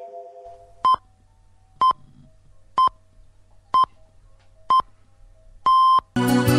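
Electronic countdown beeps, all at one pitch: five short beeps about a second apart, then one longer beep, after which music starts.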